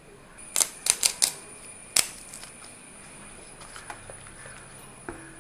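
A quick run of sharp clicks and taps at the cooking pan, about five in the first two seconds and then a few faint ticks, as curry leaves go in and a wooden spatula starts working in the brass uruli.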